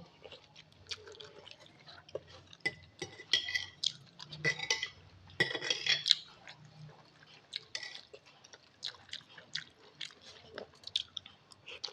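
A person eating soup noodles close to the microphone: wet chewing and slurps, with a spoon or fork clicking against the bowl.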